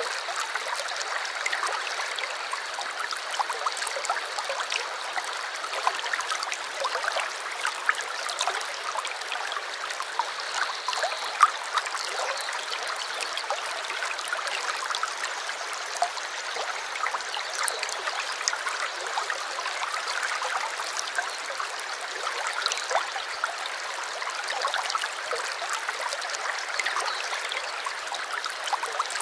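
Stream running steadily, a continuous rush of water sprinkled with many small splashes and drips. A thin, steady high tone sounds faintly over it for the first few seconds.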